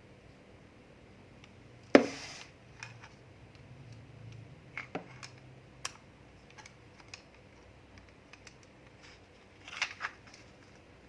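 Small household items being handled close up: scattered clicks and taps, with one sharp knock about two seconds in that rings briefly, and a quick double click near the end.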